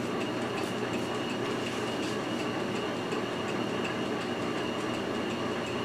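1947 10-inch Logan metal lathe running steadily at low speed in back gear, an even mechanical running sound with a thin high whine.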